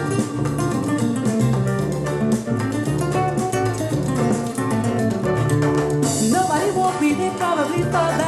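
Instrumental passage of a pop song played through a Telefunken RA 100 stereo amplifier: guitar over a stepping bass line and drums, with no singing.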